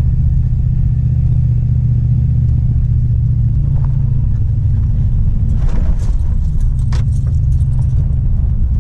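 1999 Dodge pickup truck on the move, its engine and road noise a steady low drone heard from inside the cab, with a brief rattle about six seconds in.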